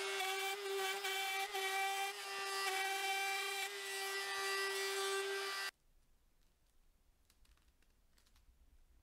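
Handheld router running at full speed, its bit cutting a curved edge through a thin board: a steady high whine over the cutting noise. It cuts off suddenly about two-thirds of the way through.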